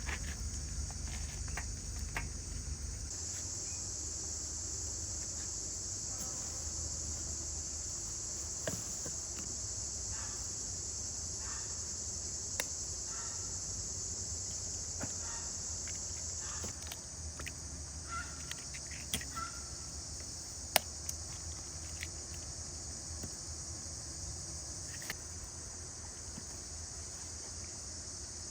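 Crickets chirping in a steady, high-pitched chorus that steps up in loudness a few seconds in and drops back just past the middle, with scattered light clicks and taps over it.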